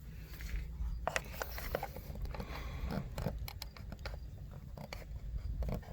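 Irregular clicks, taps and short scrapes of small hardware and parts being handled, with a low steady hum underneath.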